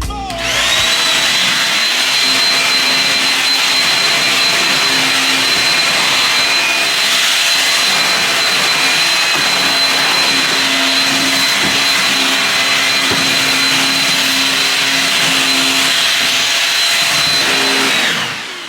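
An electric appliance motor starts up with a rising whine, runs steadily with a loud whooshing hum, and winds down near the end.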